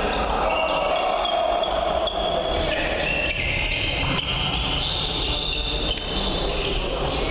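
Volleyball rally: sneakers squeaking on the sports-hall floor, with a couple of sharp ball hits about four and six seconds in.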